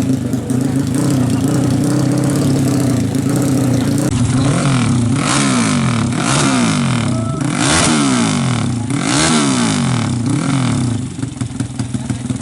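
Open-exhaust, dual-muffler 450cc drag-race motorcycle engine running loudly at a steady fast idle, then revved up and back down about five times in quick succession before settling back toward idle near the end.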